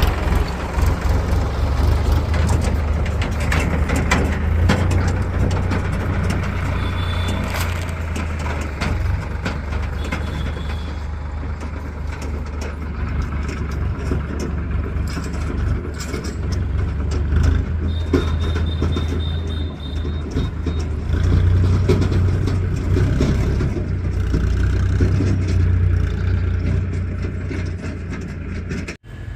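Backhoe loader's diesel engine running steadily under load, with scattered knocks and clanks throughout and a brief high whine about two-thirds of the way in.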